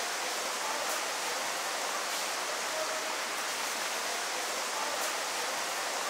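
Waterfall water rushing in a steady, even hiss.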